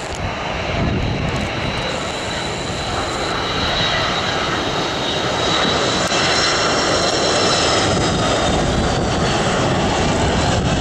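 Jet engines of a Jet Airways Airbus A330-200 airliner on final approach with gear down: a steady rumble with a high fan whine, growing louder as the aircraft nears over the first half.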